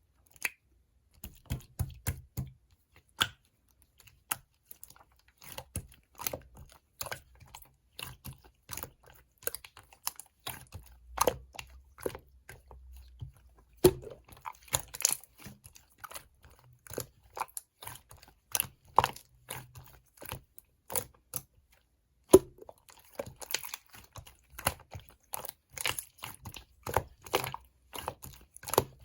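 Slime being squeezed, poked and pressed by hand, making dense, irregular sticky clicks and small pops.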